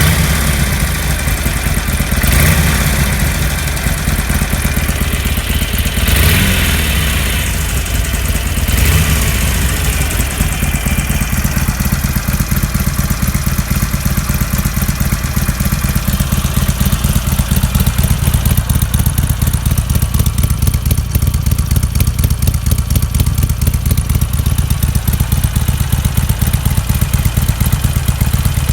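Harley-Davidson Sportster Iron 883's air-cooled V-twin on its stock exhaust, revved in four short throttle blips during the first ten seconds or so. It then settles into a steady idle.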